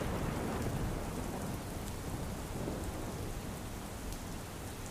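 Steady rain falling, with a low rumble underneath, slowly fading.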